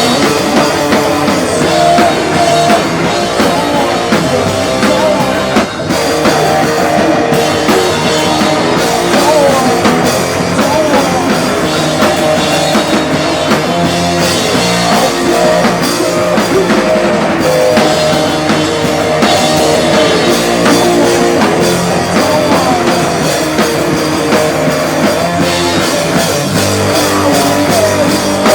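Rock band playing live: electric guitar and a drum kit, loud and continuous.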